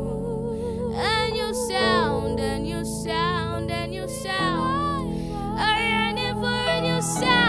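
A woman singing a slow, gliding worship chant with wavering vibrato over sustained keyboard chords.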